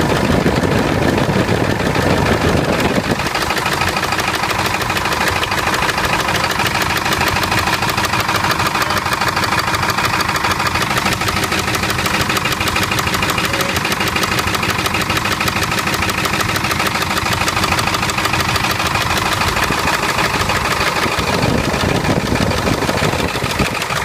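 Ford 7.3 Power Stroke V8 turbo diesel, just started cold, running with its valve cover off in a loud, steady, fast clatter. It is running rough: several injectors are sticking, and cylinders 2, 4 and 8 did nothing in the buzz test.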